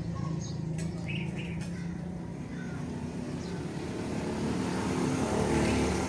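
A steady low engine hum that grows louder toward the end, with a few short bird chirps in the first two seconds.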